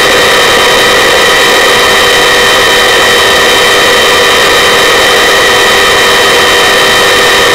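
Helicopter hovering, its turbine engine and rotors running loud and steady, with a constant high whine over the rush of the rotor noise.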